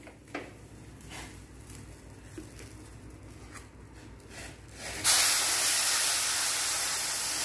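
Boiling sugar syrup poured onto hot roasted semolina (sooji) in a pan, setting off a loud, steady hiss and sizzle that starts suddenly about five seconds in. Before that, a few faint scrapes of a spatula stirring the dry semolina.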